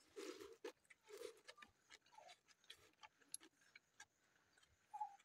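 Faint eating sounds by hand: soft chewing and lip smacks with scattered small clicks, two somewhat fuller mouthfuls near the start, as rice and cooked snails are eaten.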